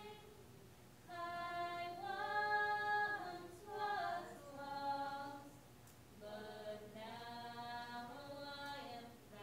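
A woman singing a hymn chorus unaccompanied, in long held notes with short breaks between phrases.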